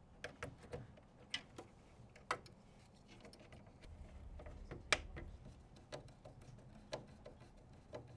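Irregular small clicks and taps of a small insulated screwdriver working terminal screws, and wires being pushed into a receiver module's screw terminals, with the sharpest click about five seconds in.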